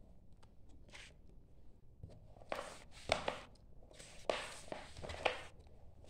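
Paper and plastic sheets being handled and slid on a desk: two spells of rustling, each with several sharp clicks and taps, about a second apart.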